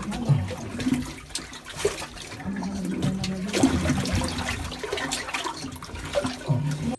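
Scraping and rustling of a person squeezing down a narrow rock shaft, clothing and body rubbing against stone, with a voice speaking now and then.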